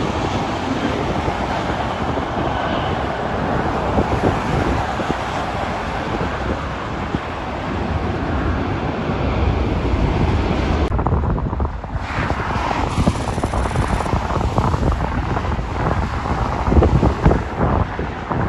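Steady jet engine roar from a Boeing 787-9 rolling out on the runway after landing, with wind on the microphone. After an edit partway through, gusty wind buffets the microphone over passing highway traffic.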